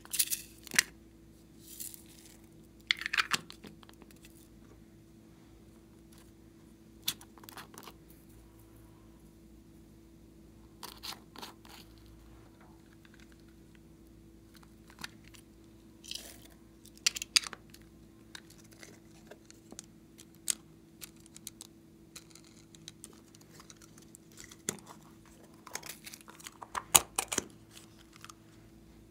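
Small plastic makeup cases being handled and opened: scattered clicks and snaps of plastic with short bursts of rustling and crinkling, the loudest cluster near the end. A faint steady hum sits underneath.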